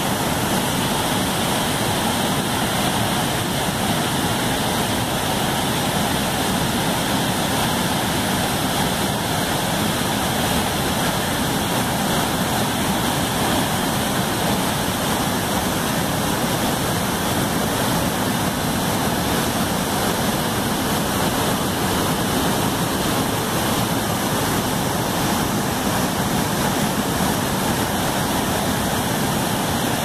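Wide river waterfall pouring over a broad ledge into a churning pool: a steady, unbroken rush of falling water.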